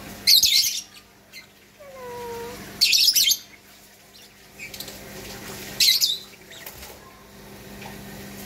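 Lovebirds in a colony aviary giving three short, shrill, high-pitched calls, spaced about three seconds apart.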